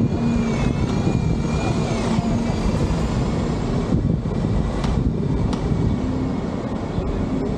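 Steady, loud vehicle rumble, with a faint wavering high whine over the first couple of seconds and a few sharp clicks further in.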